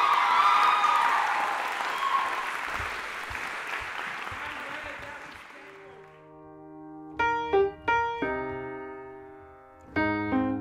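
Audience applauding, with a few whoops at first, fading out over about six seconds. Then a few slow piano chords, struck one after another and left to ring.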